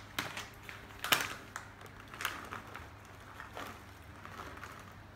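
Pecan halves tipped from a crinkling plastic bag into a small stainless steel measuring cup: a few scattered clicks and rustles, the sharpest about a second in.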